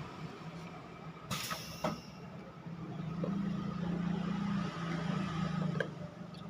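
Pneumatic two-nozzle liquid and paste filling machine cycling over a steady low hum, with a short hiss of released air about a second in and a few sharp clicks of the valves and cylinders.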